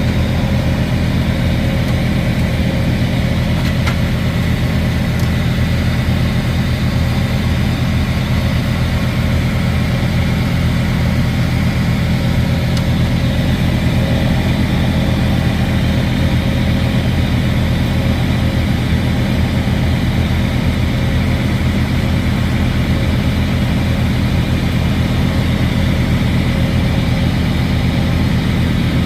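Semi-truck diesel engine idling steadily, a constant low drone.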